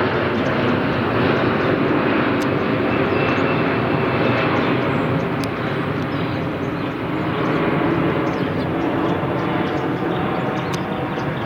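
Steady drone of an aircraft engine with a broad rushing noise.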